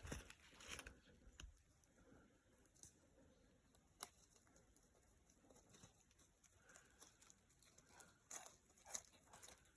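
Near silence broken by faint, scattered crackles and ticks of footsteps on the forest floor, a few more of them close together near the end.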